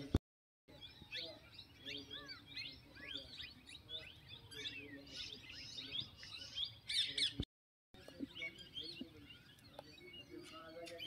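A chorus of small birds chirping and singing in many quick rising and falling notes, busiest just before the end. The sound drops out completely twice, briefly each time, at edit cuts.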